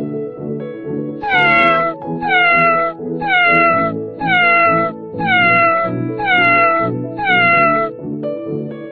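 A cat meowing seven times in a row, about once a second, each meow the same short call falling in pitch, over soft background music.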